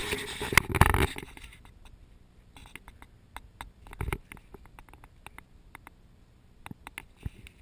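Close handling noise from a body-worn action camera: a loud rustling, scraping burst in the first second as an arm reaches out over the fence. Faint scattered clicks and a dull knock about four seconds in follow while a hand strokes a horse's nose.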